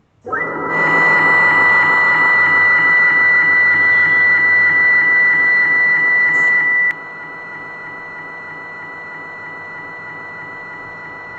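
CNC milling machine starting up and running with a steady motor whine and a high steady tone. About seven seconds in it drops suddenly to a quieter steady run.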